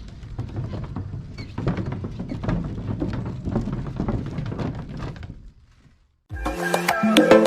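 Bicycle being ridden or pushed, a low rumble full of rattles and knocks. The sound cuts off suddenly about five and a half seconds in, and music with a clacking percussive beat starts near the end.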